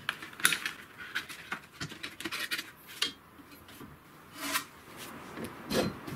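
Sanding belt being slid and pulled onto the rollers of a homemade belt grinder by gloved hands: scraping and rubbing of the belt, with scattered light clicks and knocks. A longer scrape comes about four and a half seconds in, and a louder one near the end.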